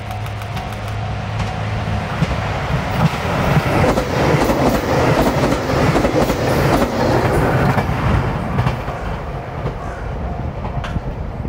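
JR Shikoku 2700-series four-car diesel train passing close by: a steady engine hum as it approaches, then loud wheel noise with rapid clicking over the rails as the cars go past, easing off near the end as it moves away.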